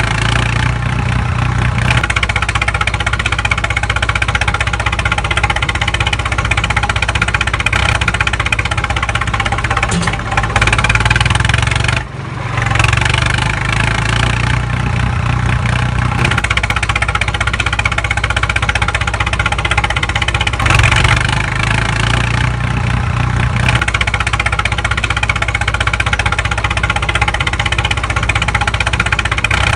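Tractor engine running steadily, with a brief drop in level about twelve seconds in.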